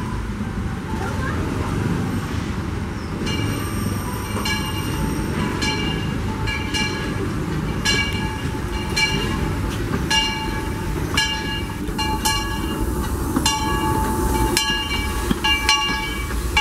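Steam locomotive No. 4, Ernest S. Marsh, pulling slowly into a station over a low, steady rumble of the engine and rolling train. About three seconds in, a ringing begins, struck about one and a half times a second, typical of the locomotive's bell rung on arrival.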